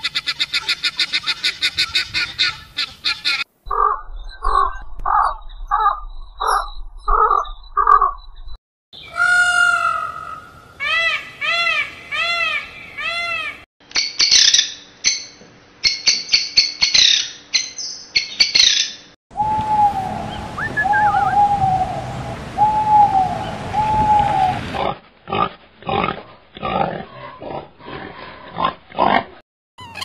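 Helmeted guineafowl calling in a rapid chatter of repeated notes, about six a second. After about three and a half seconds it cuts abruptly to a run of other animal and bird calls: a steady series of evenly spaced calls, then rising-and-falling call series, each section ending in a sudden cut.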